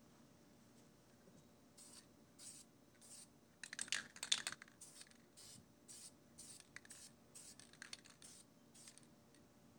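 Aerosol spray-paint can fired in a string of short, quick hissing sprays, about a dozen in all. A louder, rougher scratchy burst comes about four seconds in.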